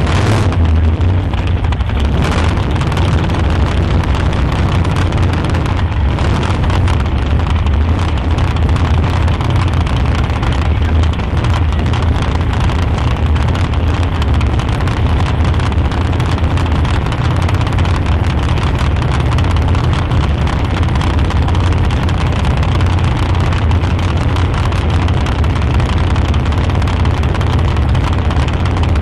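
Alcohol-injected small-block Ford V8 of a sand drag Bronco running steadily at low revs through open zoomie exhaust stacks: a loud, deep, even exhaust note with no revving.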